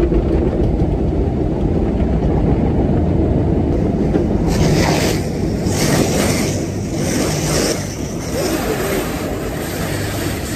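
Automatic car wash heard from inside the car: a steady low rumble of the machinery. From about halfway through, repeated sweeps of spray hiss over the body.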